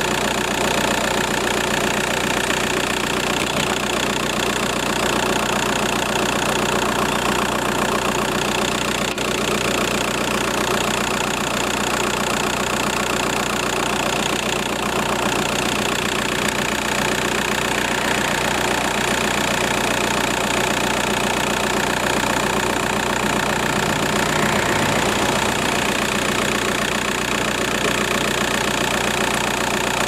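VW Golf Mk4 TDI diesel engine idling steadily, its auxiliary belt running over a newly fitted belt tensioner.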